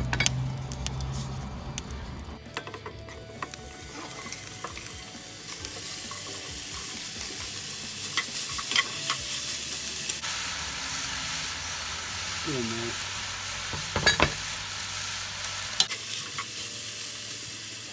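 Diced beef, onion and celery sizzling in hot olive oil in a cast iron Dutch oven as they are sautéed. A wooden spoon stirs the food, with a few sharp clacks against the pot. The sizzle builds a couple of seconds in and grows louder about halfway through.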